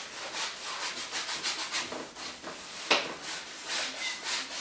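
Quick back-and-forth rubbing strokes of a painting tool on a surface, several a second, with one sharper, louder stroke about three seconds in.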